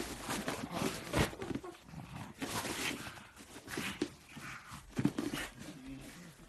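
A pug making a series of irregular, short, noisy vocal sounds, the loudest about a second in and again about five seconds in.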